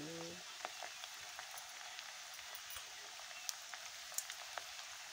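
Buffalo meat frying in a karahi: a steady sizzle with scattered crackles and pops.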